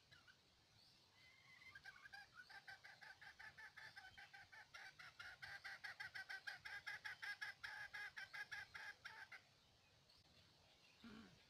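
Red junglefowl clucking: a fast run of short, even clucks, about five a second, starting about two seconds in and stopping abruptly a couple of seconds before the end.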